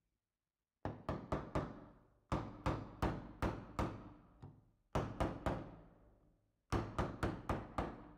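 Small hammer tapping a pin into the steel frame of a single-shot pistol: four runs of quick metallic strikes, several a second, each ringing briefly.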